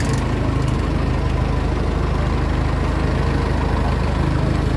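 Passenger boat's engine running steadily as the boat crosses the river, with a low, even drone.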